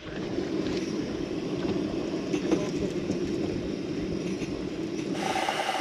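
Portable gas canister stove burning with a steady roar under a stovetop moka pot. About five seconds in, the sound changes to a brighter hiss with a steady tone.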